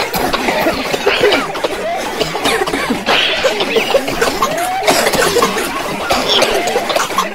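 Many people coughing over and across one another in a crowd, mixed with chatter and laughter, with no pause throughout.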